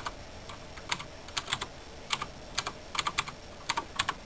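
Typing on a computer keyboard: irregular runs of quick key clicks with short pauses between them.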